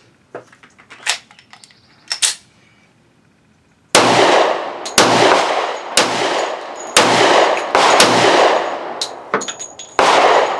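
Smith & Wesson M&P 10mm pistol firing 180-grain Sellier & Bellot rounds: loud shots about a second apart from about four seconds in, each followed by a fading echo, with the rounds feeding and firing without trouble. Before the shots come a few light metallic clicks.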